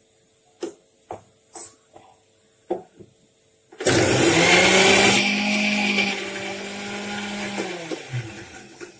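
Electric mixer grinder (mixie) with a steel jar running in a short burst to mix salt into ground chutney. A few light clinks and knocks come first, then the motor starts about four seconds in with a steady hum. It runs for about four seconds and is switched off, its pitch falling as it spins down.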